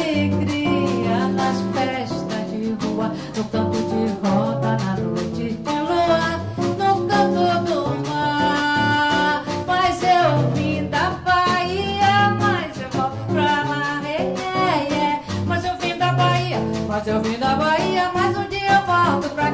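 Live band music: a woman singing a melodic line over guitar and drums.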